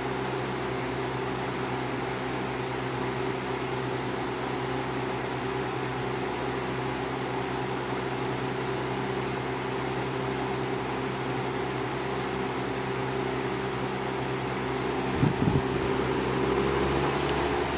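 2004 Haier 20-inch box fan running: a steady hum from its McMillan motor over the rush of air from the blades. There is a brief knock about fifteen seconds in, after which the hum shifts slightly.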